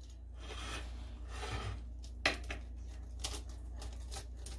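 Pizza wheel cutter rolling and pressing through a baked cheese pizza's crust onto a wooden board: a soft scraping, with a few sharp clicks, the loudest a little over two seconds in.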